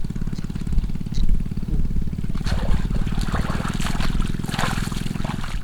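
Small engine running steadily with a fast, even pulse, with water splashing and trickling from about two and a half seconds in until near the end.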